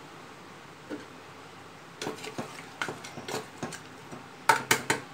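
A spoon stirring a wet meat curry in a pressure cooker, knocking and scraping against the pot in a run of irregular clicks, with a quick, louder cluster of knocks near the end.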